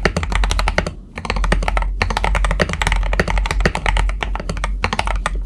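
Fast typing on a Tester68 mechanical keyboard fitted with Akko CS Jelly Black linear switches: a dense run of key clacks, with brief pauses about a second in and just before two seconds, stopping at the very end.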